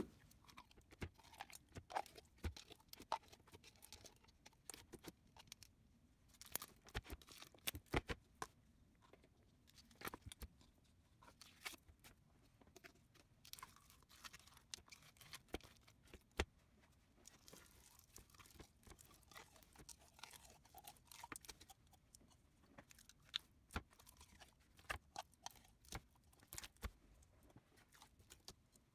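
Slime being kneaded and stretched by hand, giving off faint irregular sticky pops, clicks and crackles.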